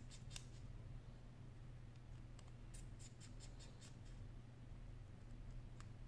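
Faint, sharp clicks of a precision screwdriver working the tiny screws on an iPhone 6 display assembly's metal shield plate, in a few short clusters, over a steady low hum.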